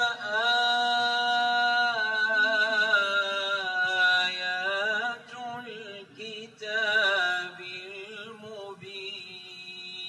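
A male reciter chanting the Quran in long, drawn-out melodic phrases, with a brief pause about five seconds in before the next phrase.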